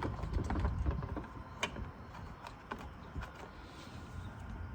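Scattered light clicks and taps of hands working loose a wire and plastic trim parts, over a low background rumble.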